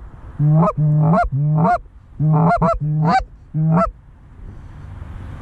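Canada goose honks and clucks, loud and close, in two quick runs of about eight calls with rising glides, stopping about four seconds in; a low wind hiss is left after them.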